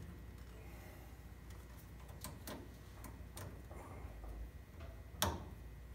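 Light metallic clicks of a roller chain's master link and spring clip being worked into place with pliers, a handful of separate ticks with the loudest about five seconds in.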